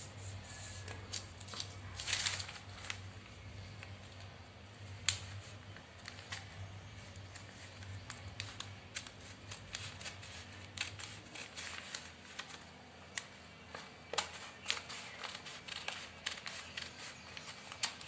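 Tailor's shears cutting newspaper: irregular sharp snips, with a burst of paper rustling about two seconds in as the sheet is handled.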